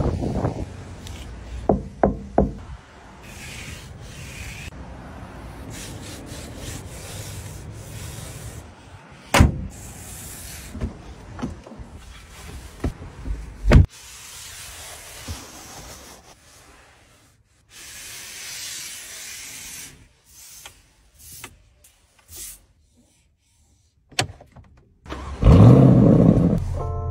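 A run of clicks, knocks and rubbing from car controls and interior trim being worked. Near the end a Porsche Cayenne Coupe's engine starts with a sudden loud burst from the exhaust and keeps running.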